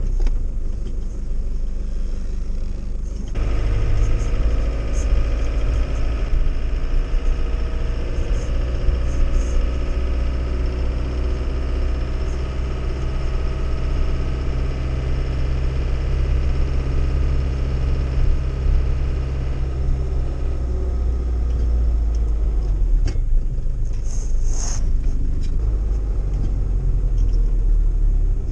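The 2.0-litre turbodiesel engine of a 1993 Iveco Turbo Daily truck running under load while driving, heard from inside the cab. About three seconds in it picks up and pulls with a slowly rising pitch, then eases off near the end, with a few short clicks.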